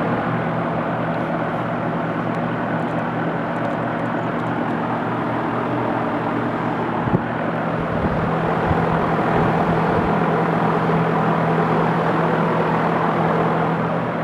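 American Standard heat pump outdoor unit running: the fan's steady rush over the compressor's even hum, with a single brief tap about seven seconds in.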